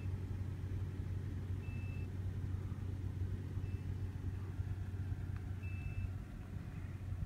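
A steady low machine hum with a short high-pitched beep repeating about every two seconds.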